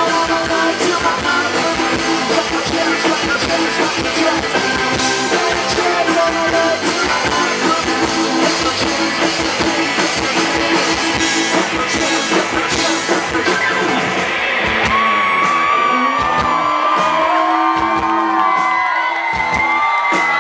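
Live rock band playing with keyboard, guitar and a singer's voice. About fourteen seconds in the drums and bass drop away, leaving wavering, gliding high tones with yells over them.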